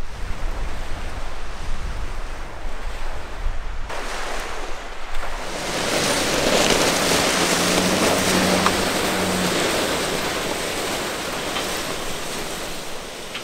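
Wind rumbling on the microphone at a lake shore. About five seconds in, a Chevrolet Silverado pickup drives past on the gravel beach: tyres crunching over the gravel under a steady engine hum, swelling quickly and then slowly fading.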